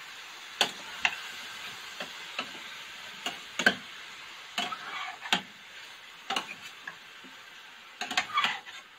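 Metal spoon stirring chicken pieces in a stainless steel frying pan, with irregular sharp clinks and scrapes against the pan over a steady soft sizzle of the chicken frying. The loudest clinks come about a third and halfway in, with a quick cluster near the end.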